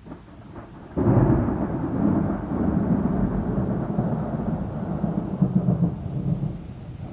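Thunder: a sudden loud crack about a second in, followed by a long low rumble that rolls on for about five seconds and fades away.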